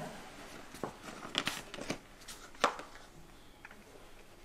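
A plastic jar with a screw lid being picked up and handled: a few short sharp clicks and rustles of plastic, the loudest a little past halfway, then quieter.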